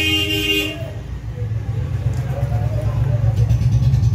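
A vehicle horn toots once, stopping under a second in, over the low rumble of a running engine that grows louder through the rest.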